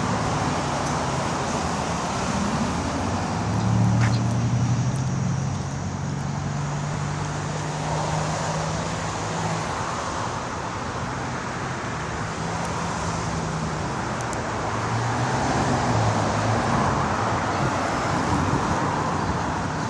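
Road traffic: cars driving past on a street, a steady rush of tyre noise with low engine hum that swells and fades several times.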